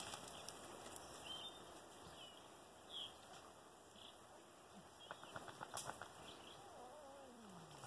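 Near silence: faint outdoor ambience with a few short, high chirps and a quick run of soft clicks about five seconds in.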